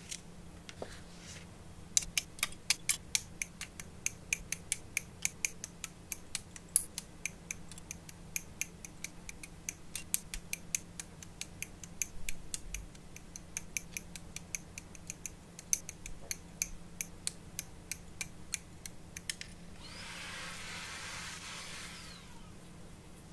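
Hobby side cutters snipping small plastic parts off a model kit's runner: a long run of sharp, crisp clicks, a few a second. Near the end comes about two seconds of rustling.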